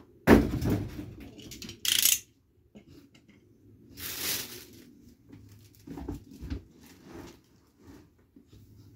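Handling noises while unpacking a table saw and its parts: a loud knock about a quarter second in, short noisy bursts of packaging being moved around two and four seconds in, and a few softer thumps near six seconds.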